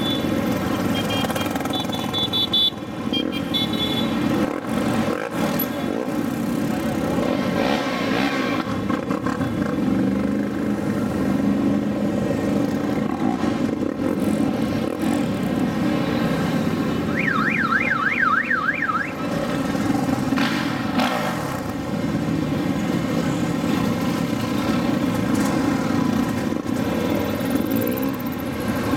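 Engines of a slow procession of quad bikes, side-by-side UTVs and motorcycles running as they pass one after another. About two-thirds of the way through, a warbling siren-like tone rises and falls rapidly for about two seconds. Short high beeps sound in the first few seconds.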